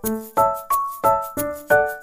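Background music: bright keyboard chords struck on a steady beat, about three a second.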